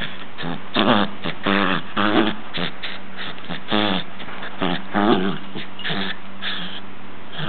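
Small dog making a string of short, pitched play growls and grumbles while tugging on a rope toy.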